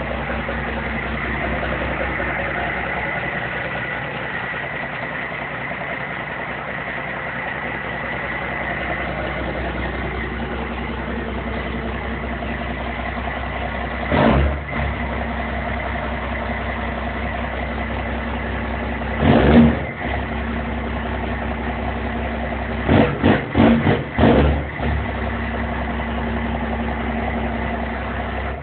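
First-generation Dodge Cummins inline-six diesel idling through 6-inch custom exhaust stacks, with a deep tone. The throttle is blipped briefly about 14 s in, again about 19 s in, and four quick times around 23–24 s, and the engine is shut off at the very end.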